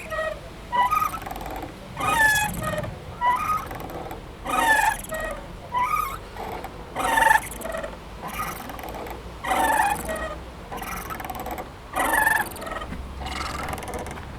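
Playground swing squeaking as it swings back and forth, a creaky gliding squeal on each pass about every second and a quarter, louder on every other pass.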